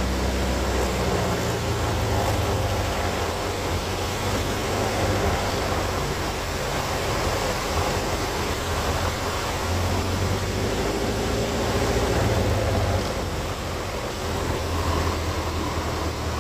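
Cockpit noise of an RV-4 light aircraft landing: the piston engine and propeller running under a heavy rush of airflow, with the engine note shifting about a second in.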